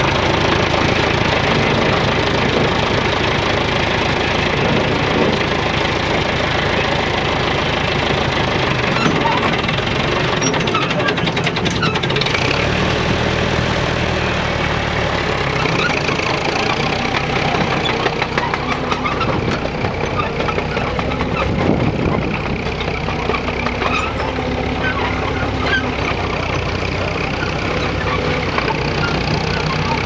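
Track-Marshall crawler tractor's diesel engine running steadily, its note shifting a little now and then.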